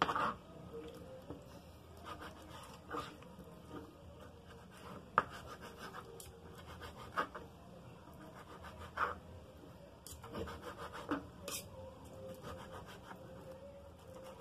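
Knife and fork cutting cooked tripe into strips on a plastic cutting board: quiet, irregular taps and scrapes of the blade on the board.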